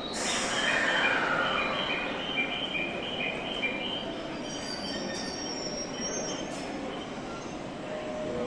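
E657-series limited express electric train pulling slowly into the platform, its brakes and wheels squealing in high, shifting tones, with a falling whine over the first two seconds as it slows. The squeal fades after about four seconds to a steady rumble.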